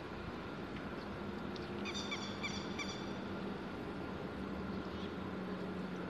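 Grey-headed lapwing giving a quick run of four short, sharp calls about two seconds in, over a steady low hum.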